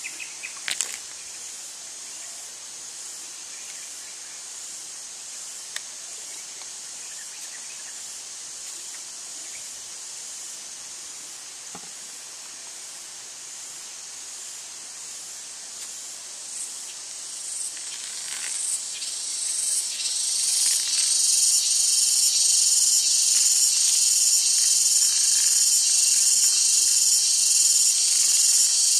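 Insects buzzing in a high, finely pulsing drone that swells much louder about eighteen to twenty seconds in. A single sharp tap comes under a second in.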